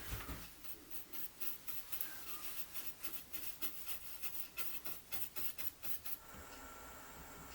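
Light, irregular clicks and scratchy rubbing from small hand work, a few a second, that stop about six seconds in; a faint, steady hum follows.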